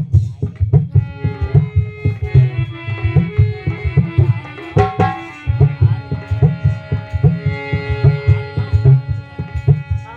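Instrumental interlude of a devotional kirtan: tabla playing a fast, steady rhythm under sustained melody notes, with one sharp strike about five seconds in.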